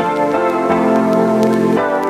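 Background music: sustained keyboard chords with notes changing about every half second.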